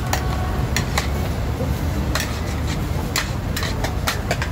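Metal ladles and spatulas scraping and clanking against large iron woks in irregular strokes as fried kuey teow and fried rice are stirred, over a steady low rumble.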